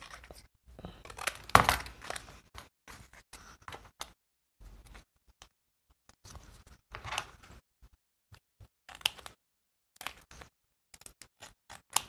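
Large scissors cutting through craft paper in short snips, loudest about a second and a half in, followed by scattered softer rustles and taps of paper being handled.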